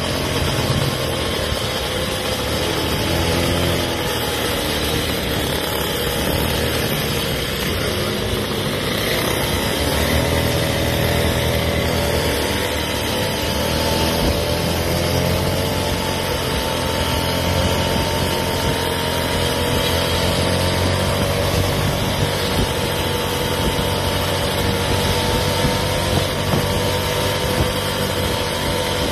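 Motorized stand-up scooters running at a steady cruising speed: a steady motor drone whose pitch wavers slightly, over a constant rush of road and wind noise.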